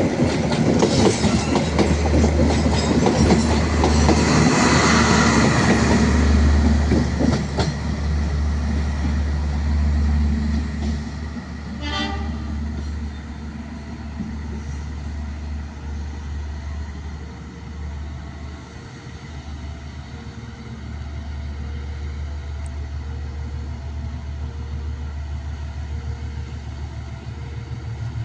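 A train passing close by, its wheels clacking rapidly over the rail joints, the noise fading after about ten seconds. Then a steady low rumble remains, with a faint tone repeating about once a second.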